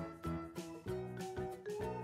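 Background music: a light instrumental tune with a melody of short notes over a steady beat.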